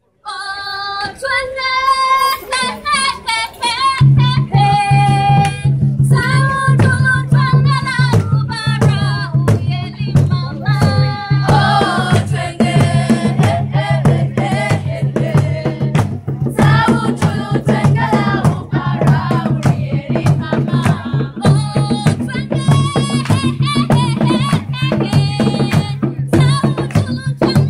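African dance music: female and children's voices singing over drums and percussion in a steady dance rhythm. The singing starts alone, and the drums and a low bass line come in about four seconds in.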